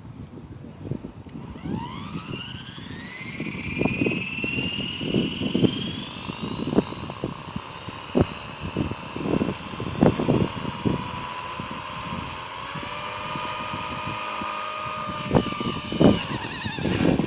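Blade 230S electric RC helicopter spooling up: a rising whine of motor and rotor that climbs steadily for about ten seconds, then holds at flight speed and dips near the end. Wind gusts buffet the microphone throughout.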